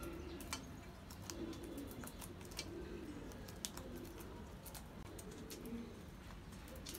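Pigeons cooing in the loft, with scattered sharp clicks of Aseel chickens pecking vegetables from a steel bowl.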